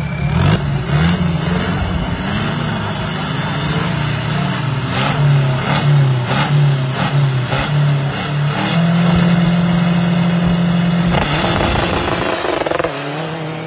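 Modified turbo-diesel off-road drag pickups revving hard while staged for a launch. The engines rise and fall in quick pulls, then one is held at steady high revs for about two seconds before the truck launches away and the sound starts to fade near the end. A thin turbo whistle climbs in pitch over the first few seconds.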